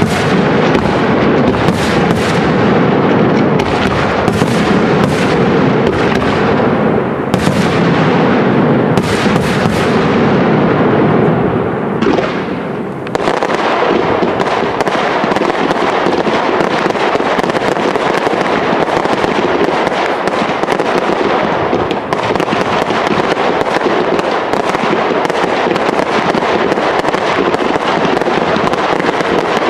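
Professional fireworks display: a continuous barrage of shells bursting with deep bangs. About thirteen seconds in, the heavy bangs give way to a dense run of rapid small bangs and crackling.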